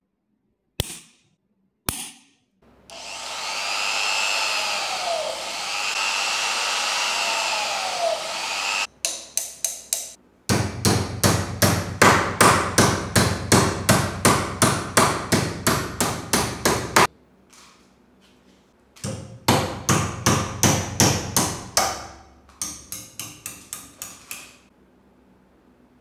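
Two sharp snaps of an automatic centre punch, then a power drill runs for about six seconds. After that come runs of rapid hammer blows, about four a second, bending an aluminium strip over the edge of a steel block.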